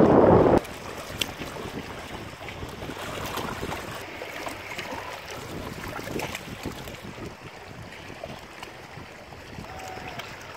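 Small lake waves lapping and splashing against shoreline rocks close to the microphone. It opens with loud wind rumble on the microphone that cuts off abruptly about half a second in.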